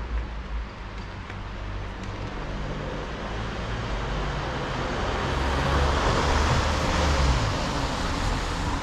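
A car driving past on a wet city street: its tyre hiss swells, peaks about six to seven seconds in, then fades as it moves away, over a low rumble of traffic.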